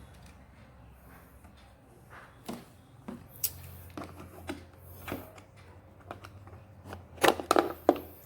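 Scattered light clicks and knocks of hard objects being handled, with a quick cluster of louder knocks near the end, over a faint low hum.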